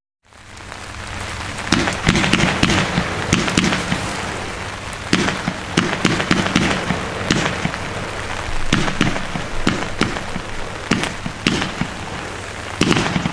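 Weco 'Mastermind' compound firework battery (four linked batteries, 144 shots) firing: rapid launch thumps and crackling over a steady hiss. The sound builds up over the first second or two.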